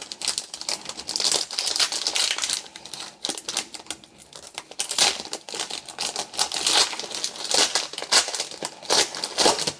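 Wrapper of a Panini Court Kings basketball trading card pack being torn open and crinkled by hand: an uneven crackling rustle.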